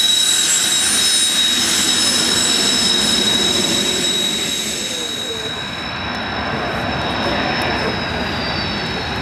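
Kawasaki T-4 jet trainer's twin turbofan engines running at taxi power as it rolls past close by: a loud, steady high-pitched whine over a rushing jet roar. The high whine drops away after about six seconds.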